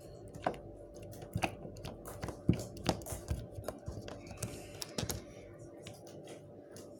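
Slime being squished and kneaded by hand, giving a string of irregular sharp clicks and pops that thin out after about five seconds.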